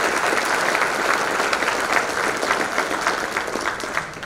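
A large audience applauding, a dense steady patter of many hands clapping that begins to thin out near the end.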